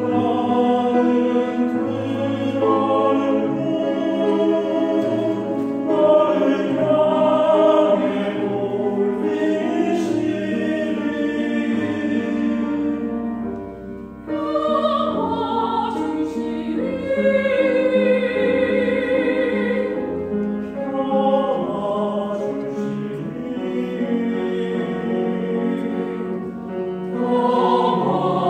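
Mixed church choir of men's and women's voices singing a slow anthem, with grand piano accompaniment. There is a short break between phrases about halfway through.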